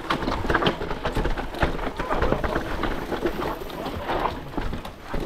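Mountain bike clattering down a rocky trail: irregular knocks and rattles as the tyres, frame and drivetrain strike and bounce over rocks, with a steady low wind rumble on the camera microphone.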